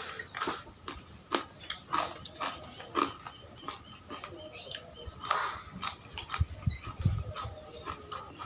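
Chewing and mouth sounds of someone eating spicy pork noodle soup: a steady run of short, irregular smacks and clicks.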